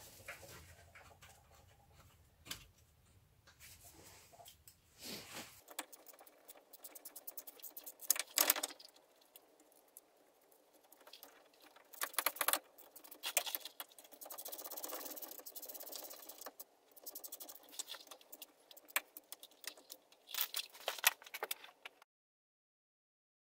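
Metal clinking and rattling of hand tools and bolts at a front wheel hub as its mounting bolts are fitted, with runs of rapid ticks. It cuts to silence about a second before the end.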